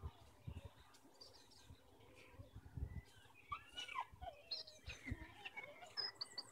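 Faint chirping bird calls from about halfway through, over scattered low thumps.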